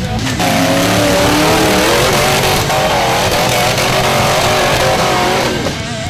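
Off-road buggy engine revving hard, its pitch rising and falling as the throttle is worked, over background rock music.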